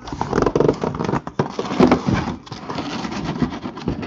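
Cardboard shipping case being flipped over and lifted off a stack of shrink-wrapped hobby boxes: cardboard scraping and rustling with many short knocks.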